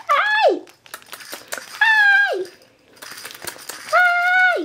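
A baby vocalizing in three short, high-pitched squealing calls, each holding its pitch and then dropping sharply at the end, with faint rustling and light clicks in between.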